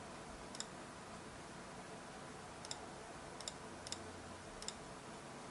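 Faint, separate clicks of computer keys pressed one at a time, about five or six spread unevenly over a few seconds, over a steady low hiss, as the server's controller configuration menus are navigated.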